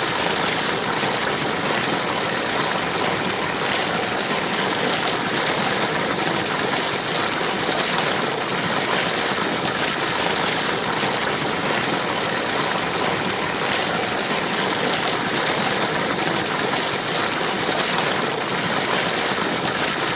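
Shallow river or stream water flowing over rocks: a steady rushing and babbling that stays even throughout, bright and hissy with little deep rumble.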